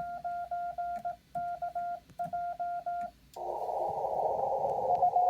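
Morse code sent on a Yaesu HF transceiver, heard as its on-off sidetone in three quick groups of dits and dahs with the receiver muted between them. About three seconds in, the keying stops and the receiver's band hiss comes back through the narrow CW filter, with a faint Morse signal in it near the end.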